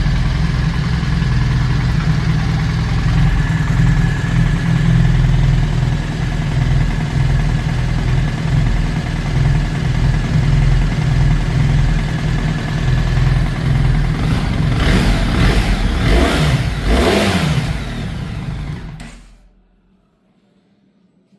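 BMW R 1300 GS Adventure's 1300 cc boxer twin idling steadily, then revved a few times about three-quarters of the way through, its pitch rising and falling. It is switched off near the end and the sound dies away to near silence.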